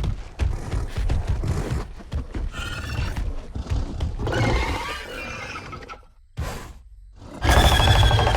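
Baryonyx dinosaur sound effects: a series of rasping growls and snarls, a short break about six seconds in, then a loud roar near the end.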